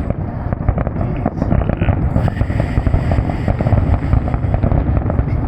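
Fireworks finale barrage: rapid, overlapping booms and crackles that run together into a continuous low rumble.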